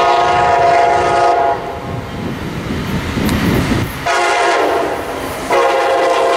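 Air horn of an approaching Brightline Siemens SCB-40 locomotive sounding for the grade crossing. One long blast ends about a second and a half in, and after a pause with a low rumble another long blast begins about four seconds in, getting louder near the end.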